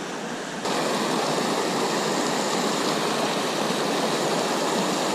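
Mountain creek water rushing over a small granite cascade, a steady whitewater hiss that jumps louder about half a second in.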